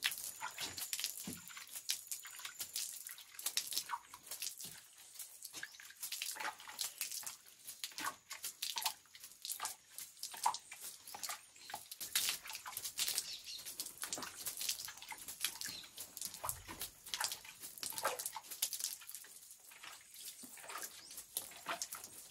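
Wet cement-and-sand slurry being flung by hand onto a brick wall as a chapisco spatter coat: a long run of short, irregular wet splats against the bricks.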